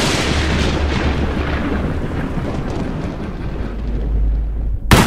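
Horror-trailer sound effects: a loud thunder-like crash that fades into a deep, steady low rumble. The rumble swells again and ends in a sharp hit near the end.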